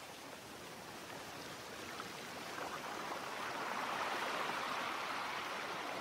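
Recorded nature sound of rushing water, a steady hiss that swells about three seconds in and eases off near the end.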